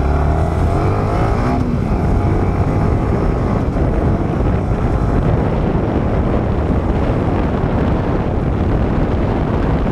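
Yamaha R15's single-cylinder engine revving up as the bike accelerates away, its pitch rising in the first couple of seconds, then a steady rush of wind noise over the microphone as the motorcycle runs along at speed.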